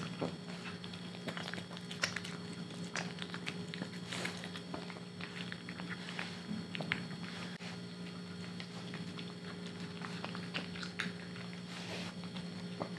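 French bulldog puppy eating kibble mixed with chicken breast and tuna from a plastic bowl: irregular crunching and clicking of chewing, over a steady low hum.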